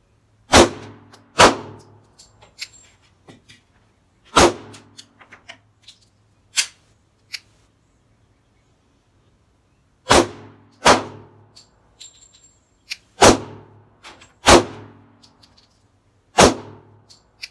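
Eight single shots from a Sarsılmaz SAR9 9mm pistol, fired at an unhurried, irregular pace, some in quick pairs and some several seconds apart. Each shot is a sharp crack with a short ringing tail, and there are fainter small clicks between the shots.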